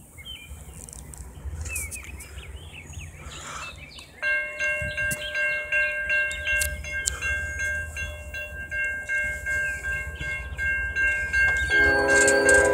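Railroad crossing warning bell starts about four seconds in, a steady repeated ringing over a low rumble. Less than a second before the end, the Norfolk Southern locomotive's Nathan K5HL five-chime air horn begins to blow, the loudest sound.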